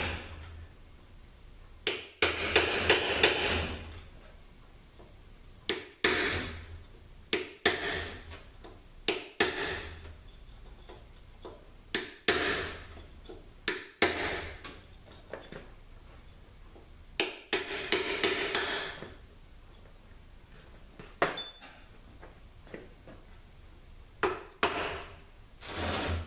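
Hammer blows knocking a seal out of a THM-125C transmission case: clusters of quick strikes lasting about a second, coming about five times, with single sharp knocks in between.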